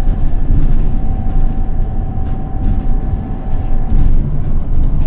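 Switch MetroCity electric bus heard from inside the cabin: a steady whine from the electric drive motor over a heavy rumble of road and tyre noise, with scattered clicks and rattles. The whine stops about four seconds in.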